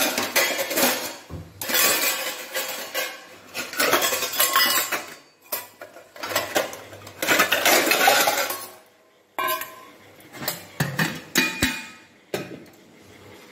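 Stainless steel bowls and utensils clattering and clinking as they are rummaged through in a dish rack, in several bursts with short pauses between them.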